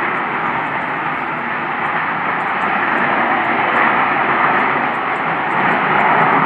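A really loud, steady jet-like roar from the sky, swelling slightly in the second half, of no visible source.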